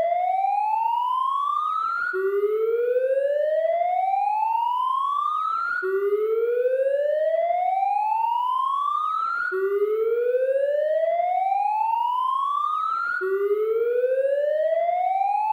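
Police siren wailing in a slow repeating cycle. Each time the pitch rises steadily for nearly four seconds, then drops back abruptly and starts rising again, about four times over.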